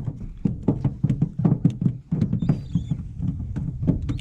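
A rapid, irregular string of knocks and thumps, several a second, with a brief high chirp of a bird about halfway through.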